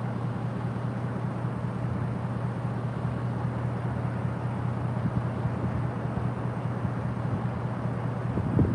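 A vehicle engine running steadily: a constant low rumble with hiss over it.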